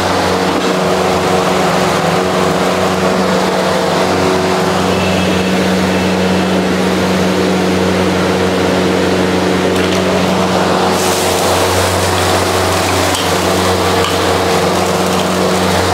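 Steady mechanical hum with a constant hiss over it. The hiss brightens about two-thirds of the way through.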